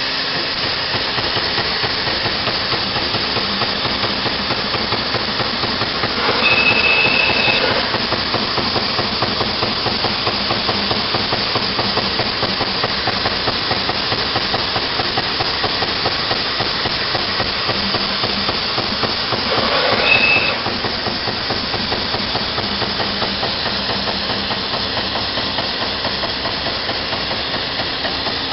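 Amada Vipros 255 22-ton CNC turret punch press running a punching cycle: a steady, rapid run of punch strokes with machine hiss. Twice, about six and twenty seconds in, there is a louder rush with a short high whistle.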